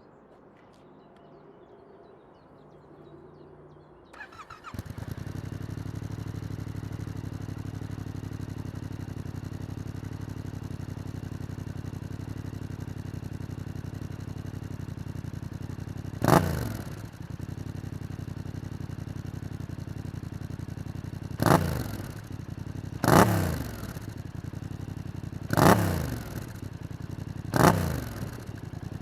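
Yamaha MT-07's 689 cc parallel-twin engine starting about four seconds in, then idling steadily through a Mivv GP Pro exhaust with its dB killer fitted. In the second half it is blipped five times, each rev rising sharply and falling straight back to idle.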